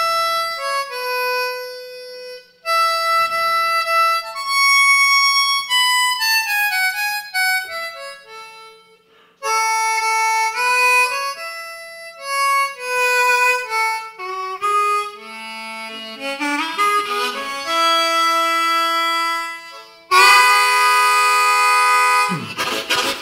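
Solo blues harmonica played cupped against a microphone, in a piece imitating a train: phrases of single notes with short pauses, then about 20 s in a loud held chord that breaks into a fast, even rhythmic pulse near the end.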